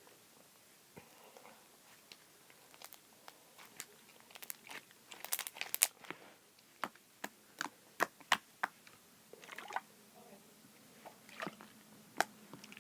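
Homemade slime being squeezed and stretched by hand, giving off irregular small pops and clicks.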